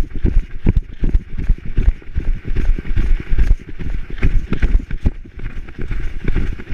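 A dog running flat out over dry leaf litter, its strides landing as a rapid, uneven thumping that jolts the GoPro it wears, with leaves rustling underfoot.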